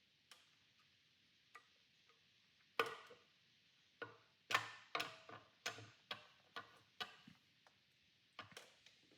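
Irregular metal clicks and clinks of a timing cover and its bolts being handled and fitted to an engine block, sparse at first and coming more often about halfway through.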